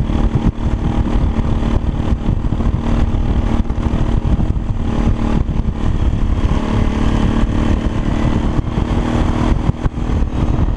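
An engine running steadily, its even hum sitting over a heavy low rumble.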